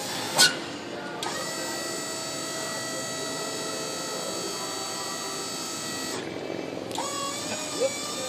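Power unit of a truck-mounted motorcycle lift whining steadily as it tilts the loaded bed up, after a sharp clunk about half a second in. The whine stops for about a second and then starts again, with another clunk near the end.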